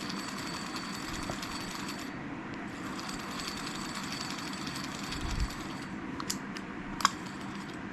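A few sharp clicks and a dull knock from a Zebco 33 spincast reel being handled during reassembly, over a steady background hiss and hum: a thump about five seconds in, then three clicks near the end, the last the loudest.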